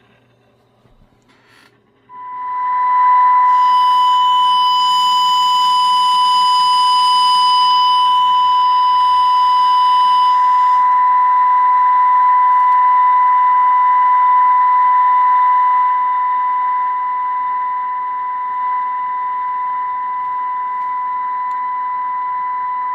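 Steady single-pitch test tone from a signal generator, received on a Cobra 142 GTL CB base station and played through its speaker. It comes in about two seconds in, carries extra high overtones for several seconds, then eases slightly quieter past the middle. The audio is clean, with no squeal: the radio's receive-audio fault is fixed.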